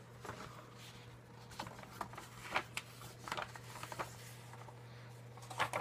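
Faint rustling and scattered light clicks of items being handled, over a steady low hum.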